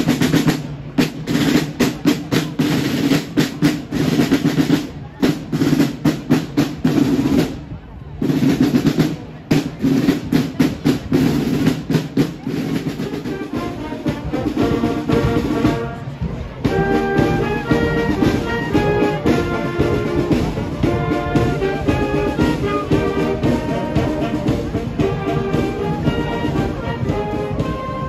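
Marching band playing in a street parade: a snare drum cadence with steady held brass notes, then from about halfway a band of clarinets, flutes, saxophones and brass playing a tune over the drums.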